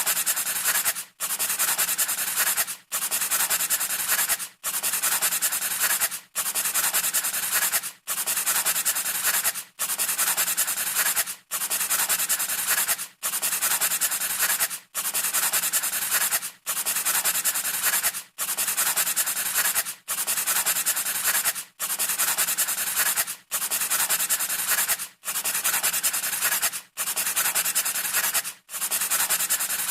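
A rough scraping or rubbing noise in long, even strokes of about a second and a half, each cut off by a brief gap, repeating steadily about every 1.7 seconds.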